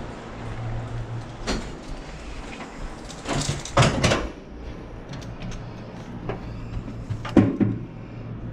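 Handling noises and clicks as a key card is put to a hotel room door lock, with a loud rustling cluster a few seconds in and a sharp knock near the end, over a steady low hum.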